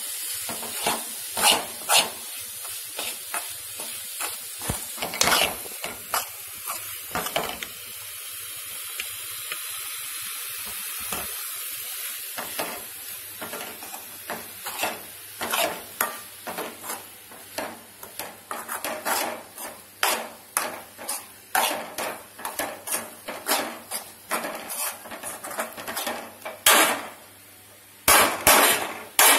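Spatula scraping and knocking in a kadai as grated coconut is stirred into hot syrup, with a steady sizzle under the strokes in the first half. The strokes come faster after about twelve seconds, and the loudest knocks fall near the end.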